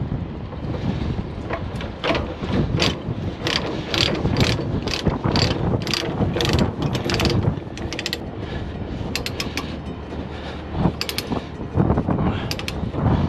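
Ratchet chain binder being cranked tight on a load chain, its pawl clicking about twice a second with each stroke of the handle, then a few quicker runs of clicks near the end.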